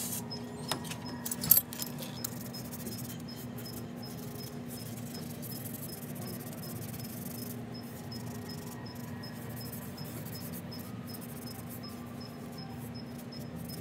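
A parked UPS delivery truck's hazard-light chime, a regular run of short, faint high pings, over a steady low hum. A sharp knock comes about a second and a half in, and faint rubbing is heard from work on the engine.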